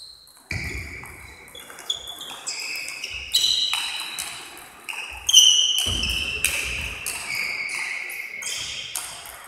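Table tennis rally: the ball clicks sharply off the bats and the table at irregular intervals, between them high squeaks from the players' shoes on the hall floor.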